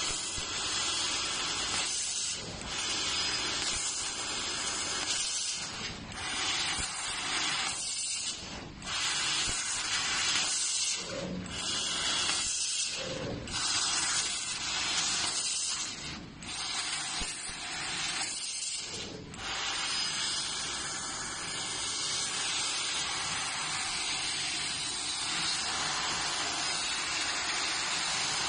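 Assist gas hissing through a laser cutting head's nozzle as it cuts sheet metal. It stops briefly several times in the first twenty seconds as the head moves between cuts, then runs on steadily.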